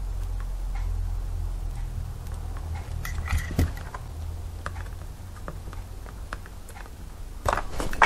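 Light metallic clicks and taps of a soldering iron and vice grips being worked against a toggle switch while it is desoldered: a few about three seconds in and a louder cluster near the end, over a low steady hum.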